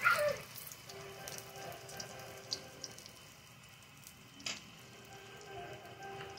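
Egg-and-okra omelettes frying in hot oil in a wok: a steady sizzle with scattered small pops and crackles, one sharper pop past the middle.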